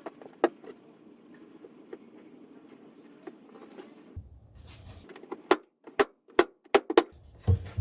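Wooden knocks and taps as wooden pieces are handled and set in place on a workbench: a few scattered clicks at first, then a quick run of sharp taps in the second half, and a heavier thump right at the end.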